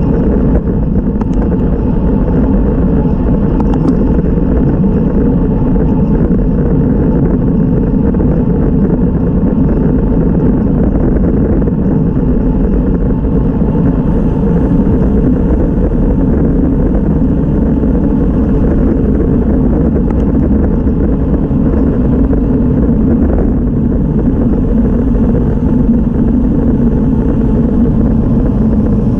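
Wind rushing over the microphone of a camera on a road bike riding at about 25 mph, mixed with tyre noise on the asphalt: a loud, steady rush, heaviest in the low range.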